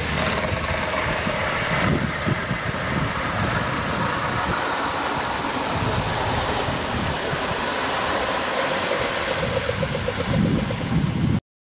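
Gauge 1 model trains running on an outdoor garden railway: a steady mechanical rumble of wheels and motors on the rails, with a faint high whine over it. The sound cuts off suddenly near the end.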